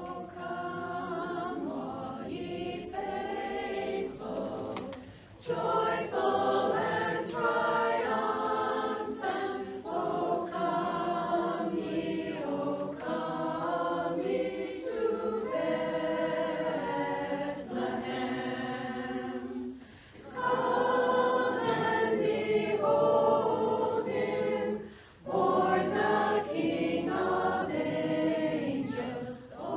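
Women's barbershop chorus singing a cappella in close harmony, in held phrases with short breaks about five, twenty and twenty-five seconds in.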